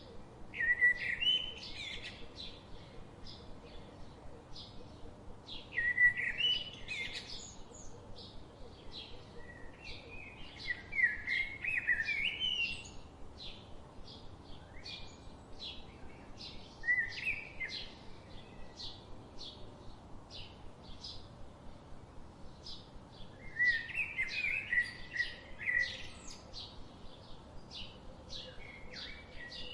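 Birds calling: a steady run of short, high chirps, about two a second, throughout. Over it, louder warbling song phrases come about every five seconds.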